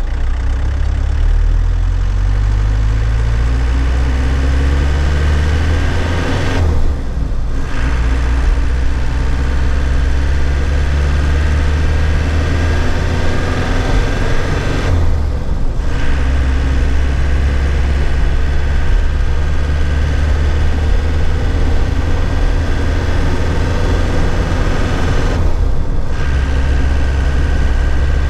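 2001 Nissan Cabstar truck engine pulling under load, its note rising as the truck gathers speed, then dropping away briefly for manual gear changes about seven seconds in, around fifteen seconds and again near the end. After the second change the engine runs at a steadier pitch.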